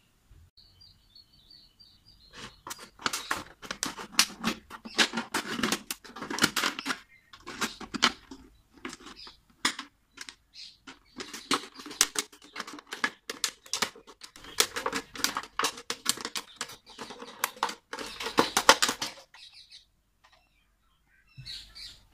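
A thin plastic water bottle crinkling and crackling as it is handled and squeezed, in rapid irregular crackles with short pauses, stopping about three seconds before the end.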